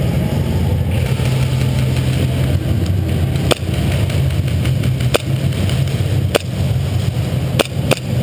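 Airsoft gunfire: five sharp single cracks from about three and a half seconds in, two of them close together near the end, over a steady low drone.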